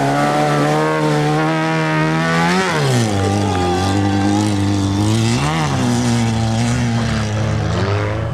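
Off-road race vehicle's engine running hard at high, steady revs. The pitch drops sharply and climbs straight back twice, at about a third and two thirds of the way through, then rises again near the end.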